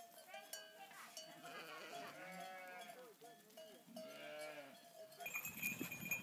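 Flock of sheep and lambs bleating, several calls in turn, with a steady bell-like tone among them. About five seconds in, this gives way to a horse-drawn wooden cart: a run of quick knocks and clatter with a high steady ringing.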